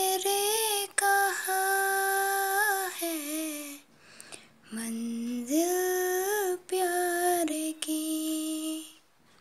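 A female voice singing a Hindi song without accompaniment, holding long notes. She pauses briefly about four seconds in and stops just before the end.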